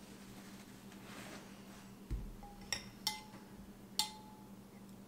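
Metal spoons clinking against ceramic soup bowls: three sharp, briefly ringing clinks in the second half, after a soft low thump about two seconds in.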